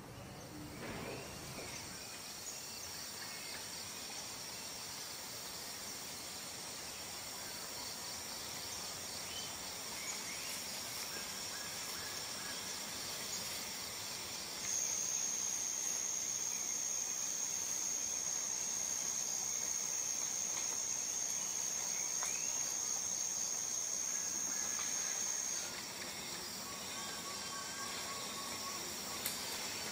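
Chorus of insects droning steadily at a high pitch. About halfway through, one louder, even, high-pitched insect call joins in, holds for about eleven seconds and stops abruptly. A few faint short bird chirps sound over it.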